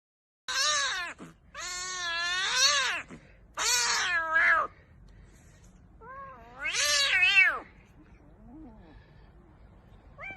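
A cat meowing repeatedly: four loud, drawn-out meows, the second the longest, then a faint short one near the end.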